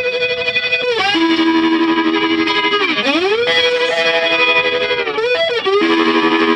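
Instrumental background music: a melody of long held notes that slide down and back up in pitch, about a second in, around three seconds and again near five seconds.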